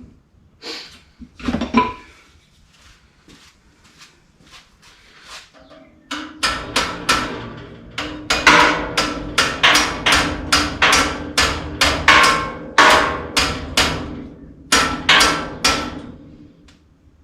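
Hammer blows on metal while forcing a rear shock absorber onto its mount: a few scattered knocks, then from about six seconds in a fast, steady run of strikes, about two to three a second, with a metallic ring under them, stopping near the end.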